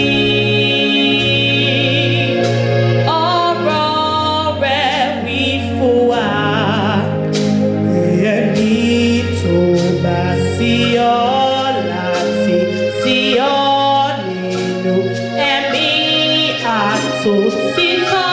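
A young women's church choir singing a hymn together, holding long wavering notes and sliding between pitches, over steady instrumental backing with occasional drum or cymbal strikes.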